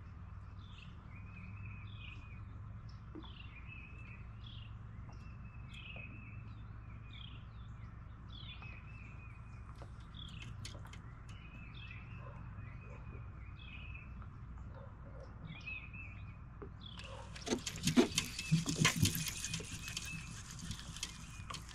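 A songbird calling over and over: a short downward chirp with a buzzy tail, about once a second. About 17 seconds in, a few seconds of loud rustling noise with clicks and knocks cover it.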